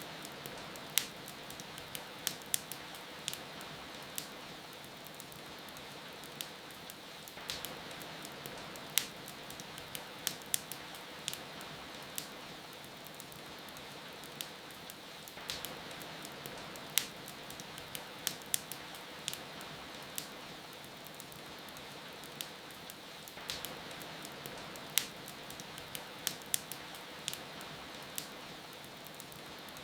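Steady rain hiss with a wood fire crackling over it, sharp irregular pops coming a few at a time.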